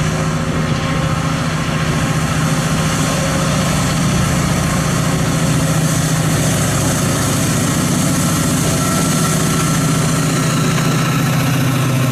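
Class 68 diesel-electric locomotive's Caterpillar V16 engine idling steadily while stood at the platform, a deep, even drone.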